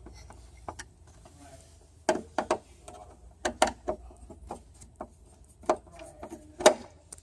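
Hand screwdriver driving a screw at an angle into a plastic picnic-table brace, with irregular clicks and knocks as the screw bites into the plastic.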